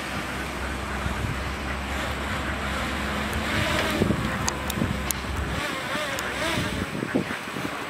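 Caterpillar 320CL long-reach excavator's diesel engine running under hydraulic work, with wind buffeting the microphone. A few sharp clicks come near the middle, and the low engine drone drops away about two-thirds of the way through.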